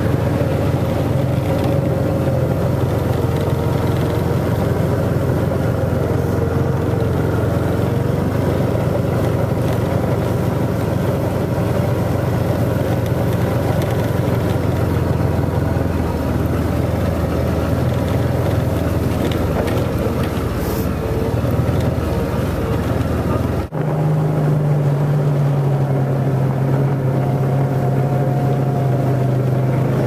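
John Deere Gator utility vehicle's engine running steadily under way, heard from on board. About 24 seconds in the sound changes abruptly to a steadier, slightly higher hum.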